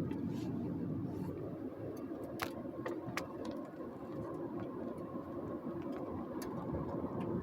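Car driving, with a steady rumble of road and engine noise heard from inside the cabin and a few scattered, irregular light ticks.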